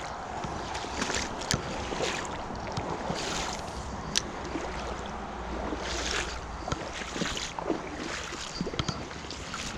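Flowing river water with irregular splashes and small clicks, under wind noise on the microphone.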